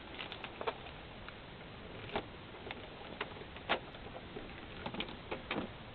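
Steady hiss of a Ring doorbell camera's microphone, with scattered faint clicks and taps at irregular intervals.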